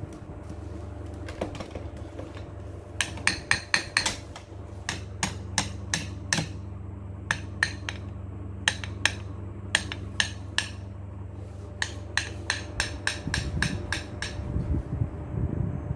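Alexandrine parakeet tapping its beak against a hand mirror, sharp clicks in quick runs of a few taps, over a steady low hum. Low rumbling comes in near the end.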